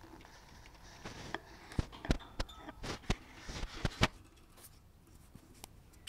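A budgie moving over the wire floor grate of its cage, making about ten sharp, irregular taps and clicks with a light rustle over a few seconds.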